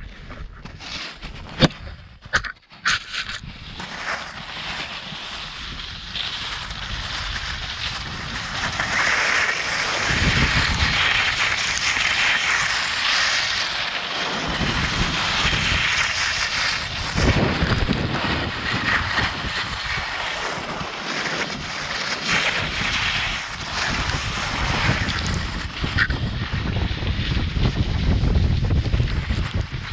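Skis hissing and scraping over snow while wind buffets the microphone, growing louder as speed builds over the first several seconds. There are a few sharp knocks near the start.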